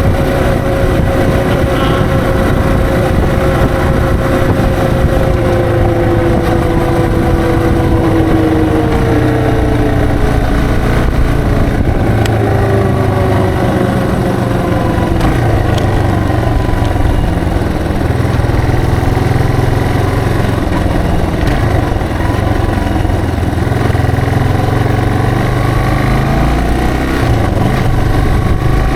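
Yamaha TW225's single-cylinder four-stroke engine running on the move. Its note falls gradually through the first ten seconds, settles into a steady low running sound, then rises again near the end as the revs climb.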